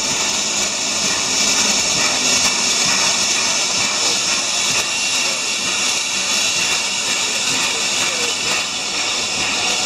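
Steam locomotive standing and hissing steadily.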